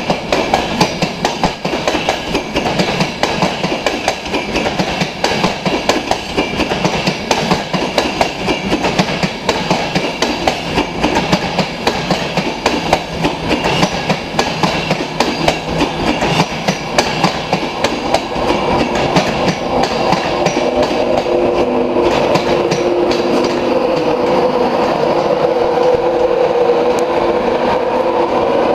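InterCity 225 train running slowly into a platform, its Mark 4 coach wheels clicking over rail joints and points. About two-thirds of the way through, a steady hum from the Class 91 electric locomotive's traction motor fans comes in and grows as the locomotive draws alongside.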